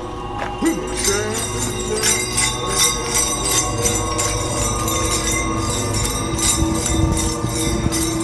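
Bells jingling in a quick, steady rhythm over music.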